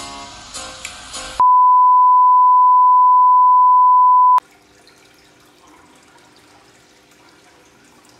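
Background music cut off about a second in by a loud, steady, single-pitched test-tone beep of the kind played with TV colour bars, lasting about three seconds and stopping suddenly. After it comes the quiet, even bubbling and trickle of an aquarium air stone.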